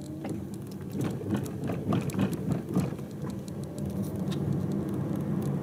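Car running, heard from inside: a steady low engine and road hum with a faint tone rising slowly in pitch as it speeds up, and a run of irregular clicks and knocks in the first few seconds.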